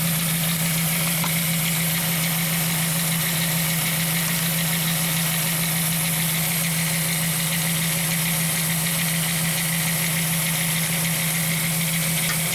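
VW Eurovan six-cylinder engine idling steadily with a misfire on cylinder 4, which makes the van shake.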